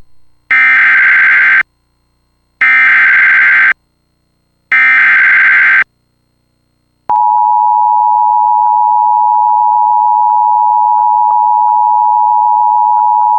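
Emergency Alert System alert opening: three one-second bursts of SAME header data, a screechy digital warble, about a second apart, then a steady attention tone starting about seven seconds in.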